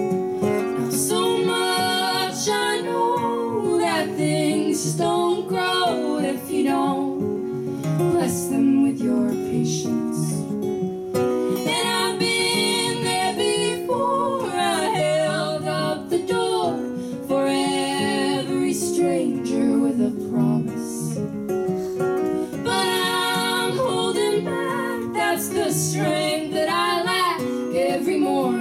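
Two women's voices singing together over an acoustic guitar.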